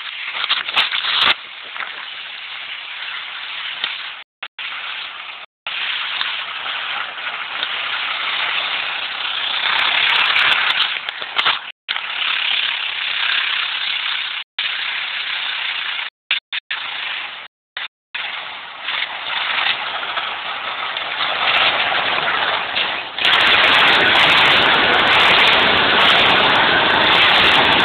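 Pickup truck driving hard through a field, heard as a steady rushing noise with several brief cut-outs. It gets louder about 23 seconds in, with the truck close by.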